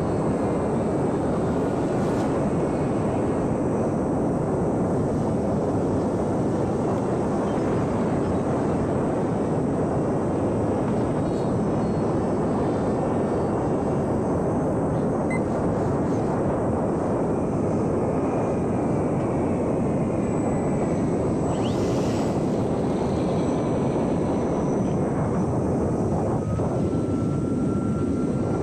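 A small electric radio-controlled airplane in flight: a steady rush of propeller and air noise, with a faint motor whine that drifts slightly in pitch.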